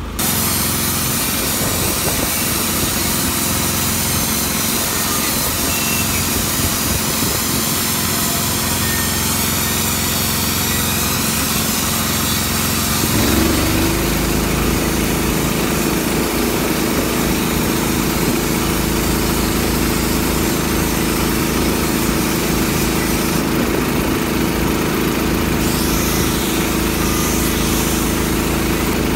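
Air-powered grinder running against a rusty steel forklift wheel rim, cleaning the rust and dirt out of the lock-ring groove: a steady whine with a harsh scraping hiss. Its pitch steps up about halfway through.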